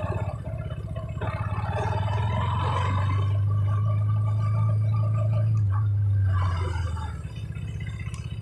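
KTM RC 200's single-cylinder four-stroke engine running through its stock exhaust: a low, pulsing exhaust note that swells about two seconds in, holds steady, and falls away near the end.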